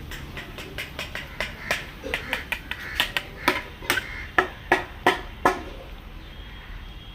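A run of sharp, irregular clicks and knocks over a low hum. They grow louder about three seconds in and stop about five and a half seconds in.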